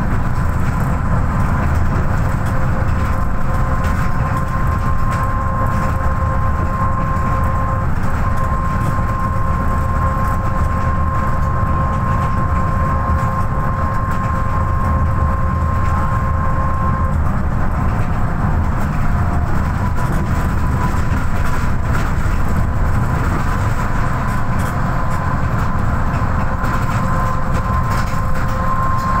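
Inside a moving MAN NL263 city bus: its diesel engine running with a steady low rumble of engine and road noise, and a steady high whine over it, plainest through the first half.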